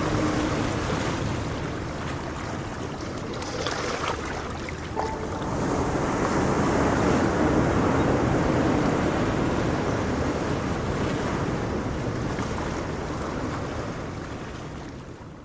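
Ocean waves washing on a shore in a steady rush, swelling to their loudest around the middle, then fading out near the end.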